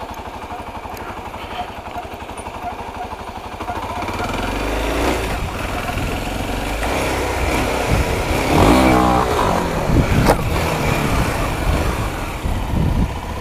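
Motorcycle engine running steadily at low speed, then pulling harder about four seconds in as the bike rides off. The engine note rises and falls around the middle, and a low wind rumble on the microphone grows with speed.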